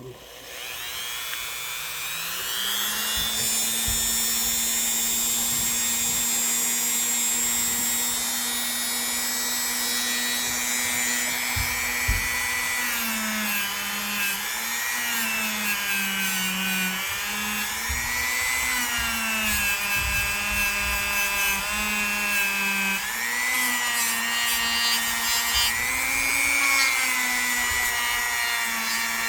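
A small electric power tool's motor spins up about a second in, then runs steadily. From about halfway its pitch dips and recovers again and again as a pocket-knife blade is pressed against it to clean and polish the metal.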